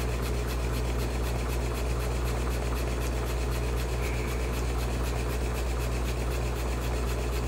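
Stuart No. 9 model steam engine running steadily, a low hum with a fast, even ticking beat. It runs smoothly with no knock, its new crankshaft's bearings filed true and freshly oiled.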